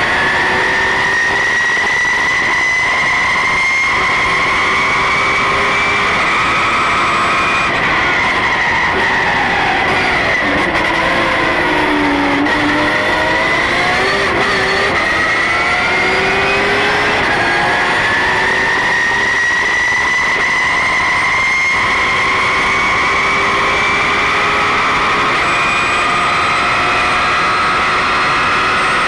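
Porsche GT3 Cup race car's flat-six engine heard from inside the cockpit, running at high revs. The pitch climbs slowly, falls away from about eight seconds in to a low around twelve seconds as the car slows, then climbs steadily again as it accelerates.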